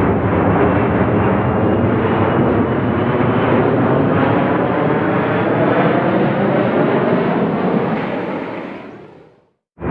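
Passenger jet engines at takeoff thrust: a loud, steady rush with a faint whine that slowly shifts in pitch. It fades away about eight seconds in and falls silent, then starts again abruptly just before the end.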